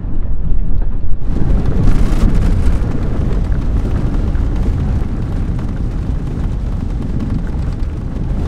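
Thunder rumbling deep and continuous through a rainstorm, with a rush of rain and wind noise joining about a second in.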